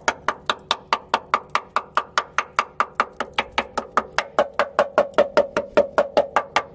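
A hammer striking the rusty steel rear chassis rail of a Land Rover Discovery 2 in quick, even blows, about five a second, knocking at loose surface rust. Each blow rings metallically, and the ring grows stronger about four seconds in.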